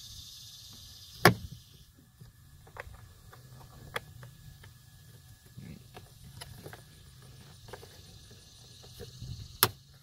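Sharp plastic clicks and taps as a small interior door-handle trim bezel is handled and pressed into a car's door panel. One loud click comes about a second in, lighter ticks follow, and another loud click comes near the end.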